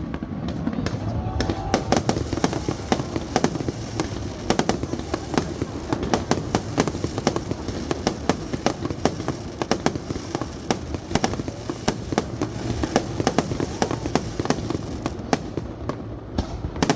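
Fireworks display: a dense, rapid run of bangs and crackles from bursting shells that goes on without a break.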